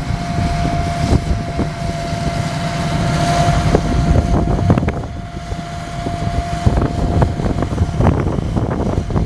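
John Deere 8430T tracked tractor running under load while pulling a potato harvester, with scattered clanks and rattles from the machinery. Wind buffets the microphone, and a steady whine runs through the sound until about two-thirds of the way in.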